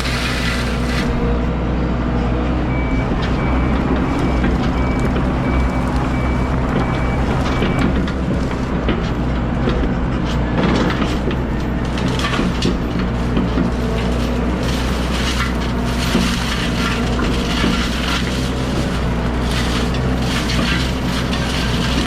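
Heavy machine engine running steadily under load while a mulching attachment grinds and splinters through brush and wood. A string of short high beeps sounds for about five seconds near the start.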